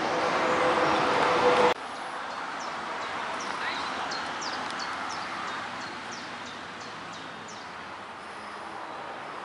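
A loud rushing noise with a steady hum that cuts off abruptly about two seconds in, then a quieter steady outdoor hiss with small birds chirping in short, high calls.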